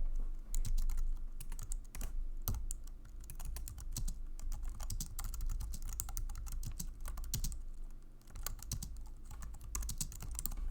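Continuous typing on an Apple full-size keyboard: a quick, uneven stream of light key clicks, easing briefly a little past two-thirds of the way through before picking up again.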